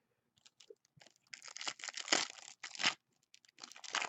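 Trading card pack wrapper being torn open and crinkled by hand, in two stretches of rustling with a short pause between.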